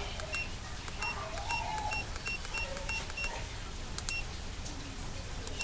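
Short, high electronic beeps, each with a click, like keys pressed on a device's keypad: about eight in quick succession in the first half and one more near the end, over a steady low rumble.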